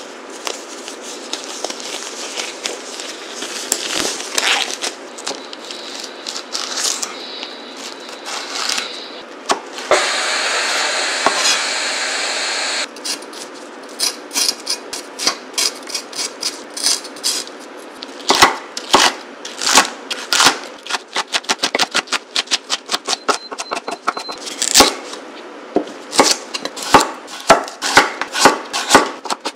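Rustling of disposable gloves being pulled on, then a steady hiss for about three seconds. After that comes a kitchen knife striking a wooden cutting board, sparse at first while green chili peppers are split and seeded, then quick repeated chops through a carrot near the end, a few per second.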